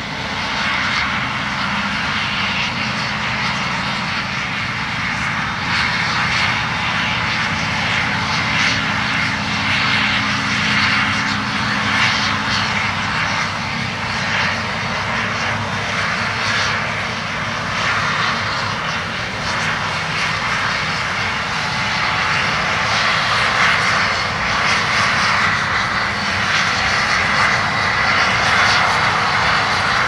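Case IH combine harvester running under load as it harvests soybeans: a steady engine drone with the rush of the threshing machinery. It grows a little louder near the end as the combine comes closer.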